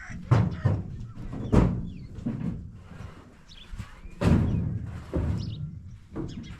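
Several heavy, dull thuds and knocks at irregular intervals, the loudest about a second and a half in and again about four seconds in.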